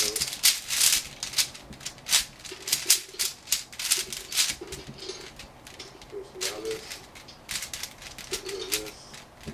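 Hard puzzle pieces clicking and clattering against each other as a mechanical puzzle is taken apart by hand, in a quick, irregular series of sharp clicks.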